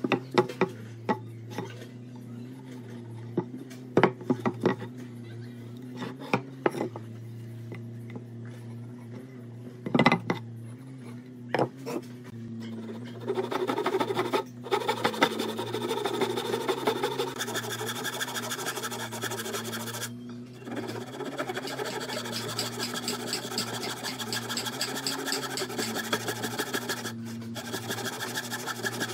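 Scattered knocks and clicks of wood being handled and marked out, then, from about halfway through, a handsaw crosscutting into a softwood timber beam: quick, continuous rasping strokes with a few short pauses.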